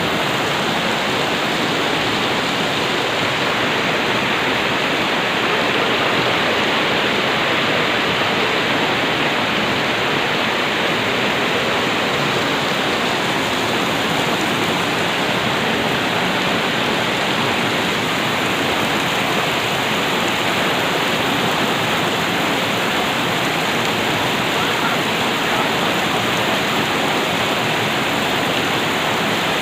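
Steady rush of fast-flowing river water, unbroken and even throughout.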